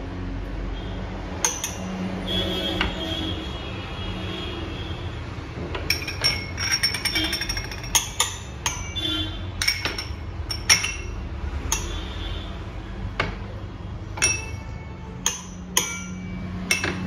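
Small glass bowls clinking and tapping against the rim of a stainless-steel mixer-grinder jar as spices are knocked into it: a string of sharp, ringing clicks, most of them in the second half.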